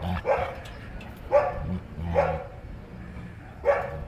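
Parrot imitating a dog's bark: about four short, sharp barks spaced unevenly, with a low steady rumble between them.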